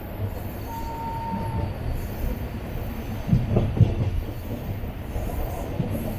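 Passenger train running on the rails with a steady low rumble. A brief thin wheel squeal comes about a second in, and a few knocks around the fourth second.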